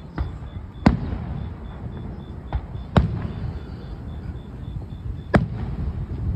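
Aerial firework shells bursting: three sharp bangs roughly two seconds apart, with a fainter one between the first two. Each bang is followed by a low rumbling echo.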